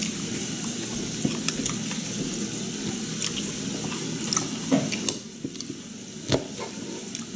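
Table eating sounds: chopsticks clicking and tapping against a metal tray rack and a lacquered bowl while picking up fried chicken and kimchi, with chewing. One sharper knock comes about six seconds in.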